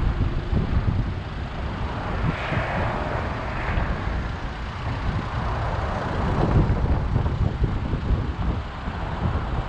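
Car driving in city traffic: a steady low rumble of road and wind noise on the microphone, with a brief swell of higher hiss a couple of seconds in.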